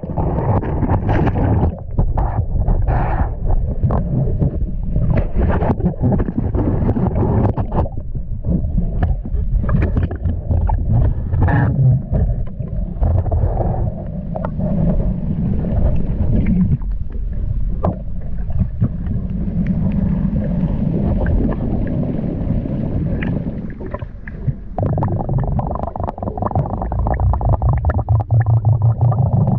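Muffled water sloshing and gurgling close to the microphone, with irregular splashes.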